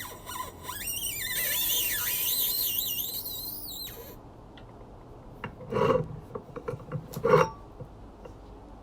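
A long, high-pitched squeal that wavers up and down in pitch for about four seconds as a stuck gas-cylinder valve is forced with a pipe wrench and leverage pipe, the threads turning under heavy torque. Two sharp knocks follow, a second and a half apart.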